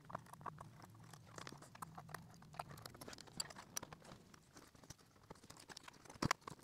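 Faint, scattered clicks and taps of plastic laptop parts and cables being handled while the display assembly is unhooked and lifted off a Dell E5550's base, with a louder knock about six seconds in.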